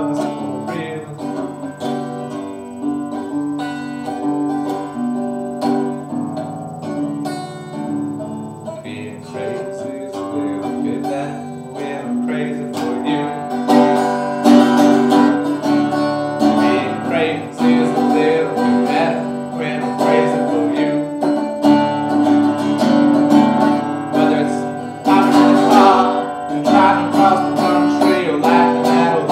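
Resonator guitar strummed and picked in a continuous instrumental passage, growing louder about halfway through.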